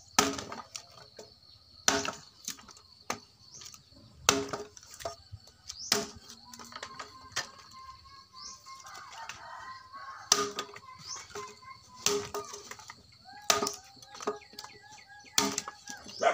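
Chopping blows on dry branch wood, about eight sharp strikes spaced one and a half to two and a half seconds apart, over a steady high insect trill and scattered bird chirps.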